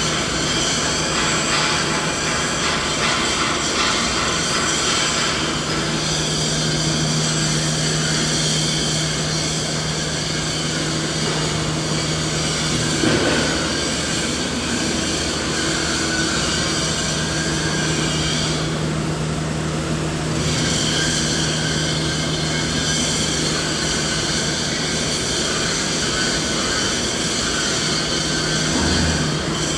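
Continuous machinery noise: a steady low hum with a broad hiss over it, the hiss briefly thinning about two-thirds of the way through.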